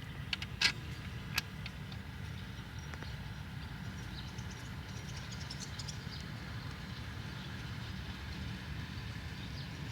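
Hand work on a combine's engine block: a few sharp metal clinks of parts and tools in the first second and a half, then faint small clicks, over a steady low rumble.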